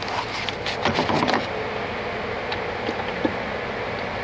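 Steady hum of a powered-up Hardinge HLV-H toolroom lathe, with a cluster of clicks and knocks in the first second and a half and a single click a little past three seconds in.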